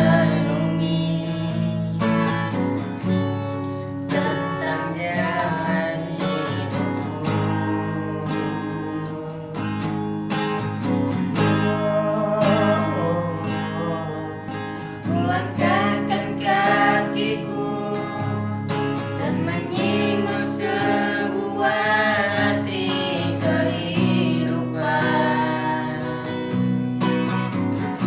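A voice singing a song over a strummed acoustic guitar.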